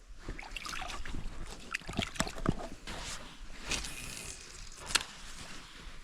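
Water sloshing and trickling, with scattered sharp knocks throughout.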